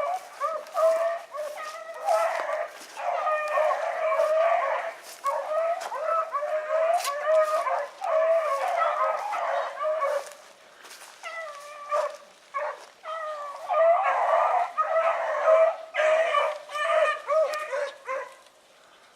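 A pack of rabbit-hunting beagles, a young Oakhill pup among them, baying on a rabbit's track, several voices overlapping almost without a break. The chorus thins for a moment past the middle and stops shortly before the end.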